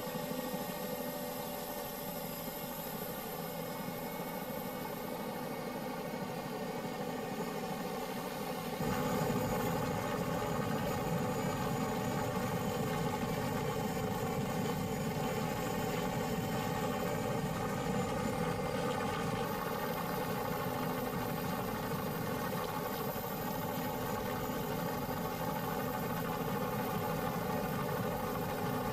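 Helicopter engine and rotor droning steadily, getting louder with more low rumble about nine seconds in.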